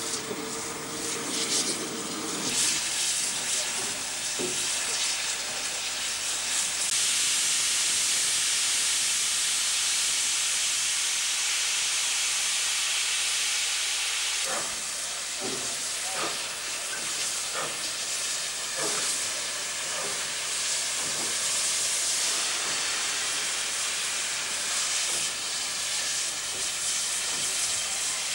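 NSW C38-class Pacific steam locomotive 3801 venting steam in a loud, steady hiss, strongest from about seven seconds in, with several short knocks in the second half.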